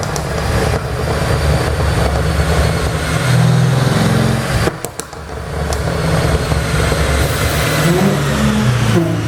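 Mercedes-AMG CLS63's twin-turbo V8 exhaust under hard throttle, rising and dropping in pitch. About five seconds in, the throttle lifts and the engine lets out a short run of pops and crackles from its pop-and-crackle tune, then pulls again.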